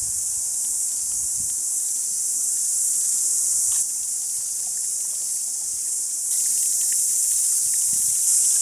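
Dense chorus of cicadas shrilling, a continuous high hiss with no gaps. Its level drops a little about four seconds in and comes back stronger a little after six seconds.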